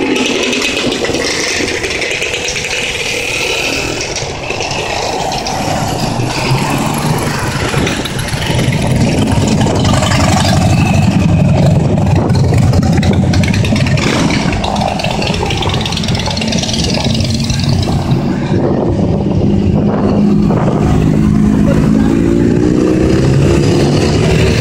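A stream of motorcycles and scooters riding past one after another at low speed, each engine's pitch rising and falling as it goes by. It grows louder about a third of the way in, with a deeper engine note from the bigger bikes.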